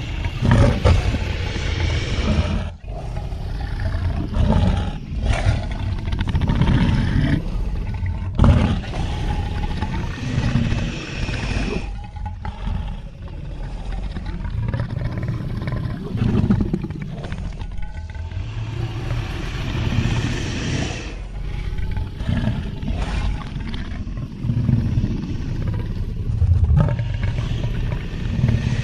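Designed dinosaur vocal sound effects for a Torvosaurus: a string of deep roars and growls, one after another with short breaks between them.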